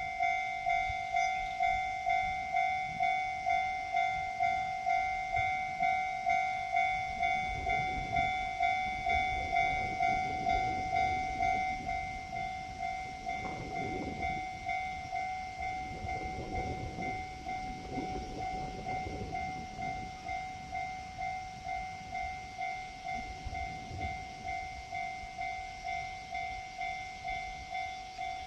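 Japanese level-crossing warning bell ringing steadily, a little under two dings a second. From about eight seconds in to about twenty, the limited express Fujikawa electric train passes over the crossing, its running noise rising and then fading under the bell.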